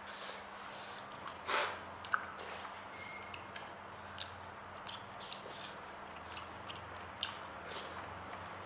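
Close-up eating sounds: a person chewing octopus and rice, with small wet clicks scattered throughout and a short, louder breathy noise about a second and a half in. A steady low hum runs underneath.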